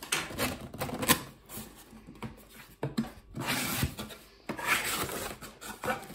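Cardboard Lego Classic box being pried open by hand: the lid and flaps scrape and rub against each other, with a sharp crack about a second in and longer scraping rustles in the second half.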